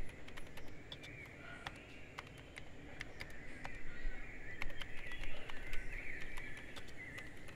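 Birds chattering and calling outside, coming and going, with scattered light clicks of typing on a laptop keyboard.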